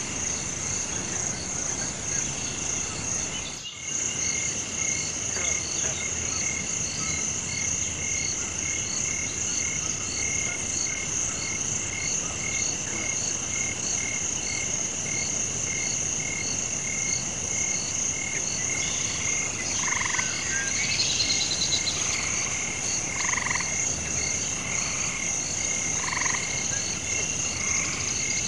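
Night chorus of frogs croaking over a steady high insect drone: one call pulses at an even, quick rate throughout, and from about two-thirds of the way in lower croaks join, one every second or so.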